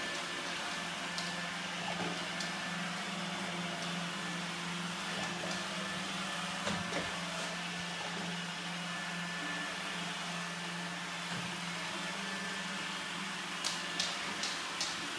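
Robot vacuum cleaner running with a steady hum and a low whine. A few light clicks near the end.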